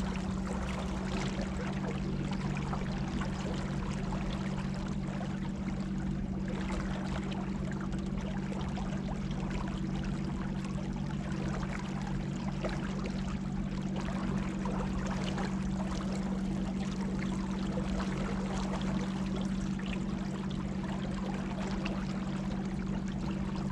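Small boat's electric trolling motor humming steadily, with water rushing and splashing along the hull as it moves.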